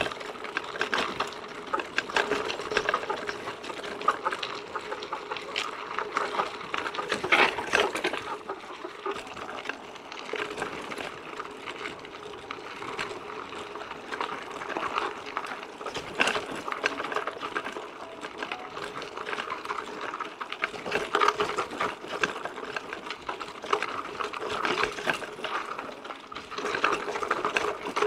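Mountain bike rolling over a rough forest track: a continuous rattling clatter of tyres and frame, with a few louder jolts.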